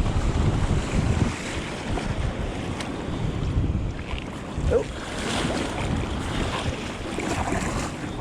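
Wind buffeting the microphone over the wash of small waves and surf around a kayak; the wind rumble is strongest in the first second or so.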